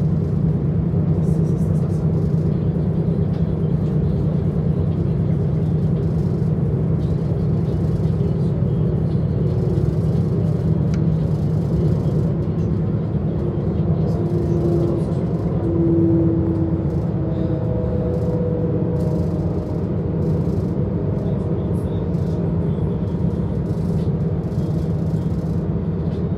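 Steady running noise of a DB class 442 Talent 2 electric S-Bahn train under way, heard from inside the passenger compartment: a continuous low rumble, with faint whining tones from the drive in the middle stretch.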